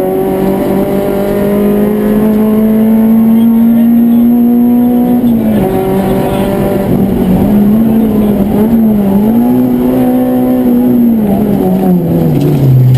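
Citroën Saxo rally car's four-cylinder engine, heard from inside the cockpit, pulling hard with its pitch climbing slowly through one gear. About five seconds in the pitch drops and wavers up and down for a few seconds, then holds again. Near the end it falls steadily as the car slows.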